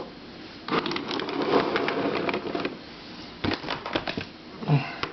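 Plastic twisty head puzzles being handled: a couple of seconds of clicking and clattering, then a few separate sharp clicks.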